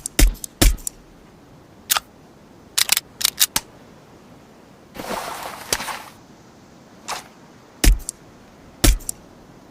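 Suppressed Heckler & Koch USP Compact pistol shots: about a dozen short, sharp reports, mostly single and spaced roughly a second apart, with a quick group of several shots around three seconds in. About five seconds in comes a second-long rattling, scraping noise.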